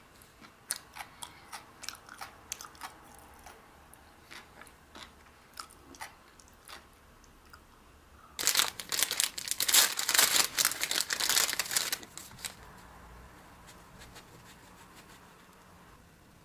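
Someone biting into and chewing bread topped with fresh cucumber slices: scattered light crackles at first, then about four seconds of loud crunching in the middle.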